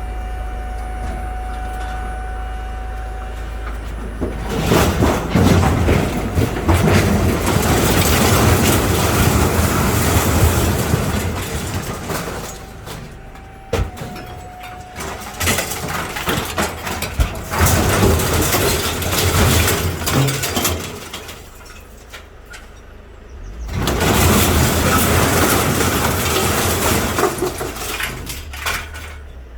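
A vehicle's engine running steadily, then a load of mixed scrap metal being tipped off, crashing and clattering in three long loud bouts with short lulls between.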